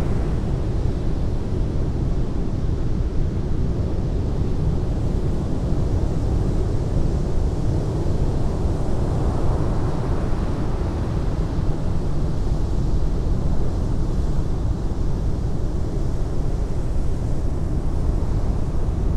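Ocean surf on a beach: a steady, deep wash of breaking waves that swells a little about halfway through.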